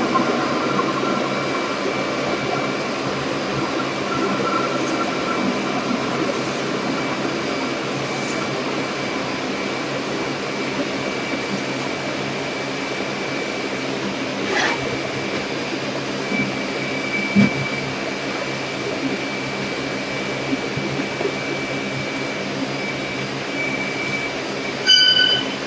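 A machine running steadily, with a faint high whine over it and a few light knocks. A brief high beep-like tone sounds near the end.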